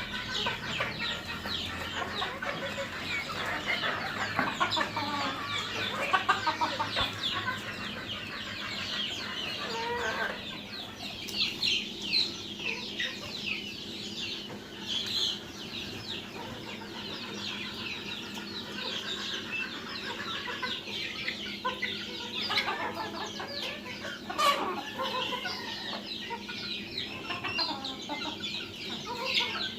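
A flock of deshi (native Bangladeshi) chickens clucking and calling together in a dense, continuous chorus over a faint steady hum.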